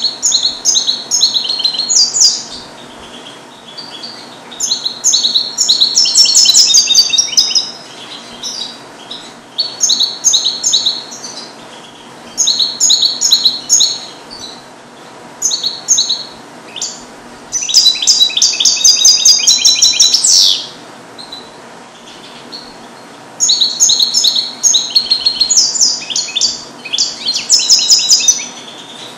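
Male European goldfinch, song-trained in the Neapolitan passata style, singing in bursts of rapid, high twittering phrases separated by short pauses. The longest phrase, about three seconds, comes about two-thirds of the way through.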